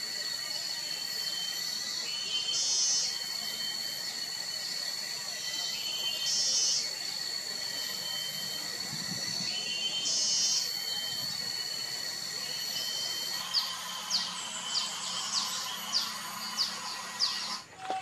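Outdoor chorus of insects and birds: a steady high-pitched insect whine with a call that repeats every few seconds. About thirteen seconds in it changes to a run of quick, sharp chirps, about two a second, then cuts off abruptly near the end.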